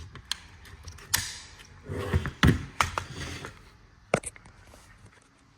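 Safety selector lever of an AK-pattern rifle, a Polish-style safety, being flicked up and down by hand, clicking into its detents several times at irregular intervals amid light handling of the rifle.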